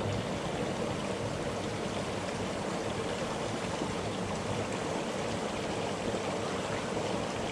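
Steady rushing of flowing stream water, an even noise that neither rises nor falls.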